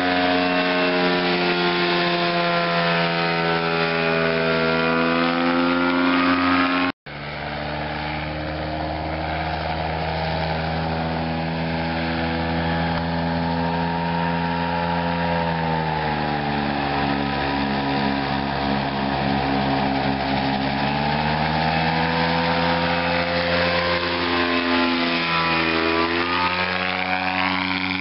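Gyroplane's engine and propeller droning as it flies overhead, the pitch sliding down and back up several times as it passes and changes power. The sound cuts out for an instant about seven seconds in.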